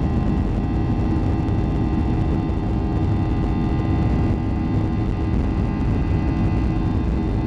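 Boeing 737-800's CFM56-7B turbofan engines running steadily at low power while the airliner taxis, heard inside the cabin over the wing. It is a constant rumble with a steady whine of several tones on top.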